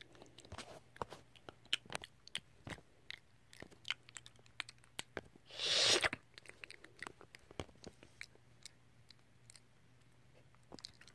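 Dog chewing food from a bowl: an irregular run of short crunches. A brief louder rustle comes about six seconds in.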